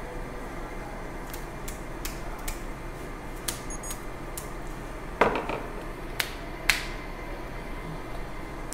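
Dental instruments and the curing light being handled and set down: a run of small hard clicks, then a louder clatter about five seconds in and two sharp knocks after it.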